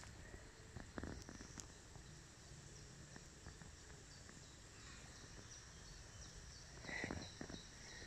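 Quiet woodland ambience: a faint steady hiss with small, distant bird chirps high up. Near the end come a few soft rustles in dry fallen leaves as a Norwegian Forest Cat walks up over the leaf litter.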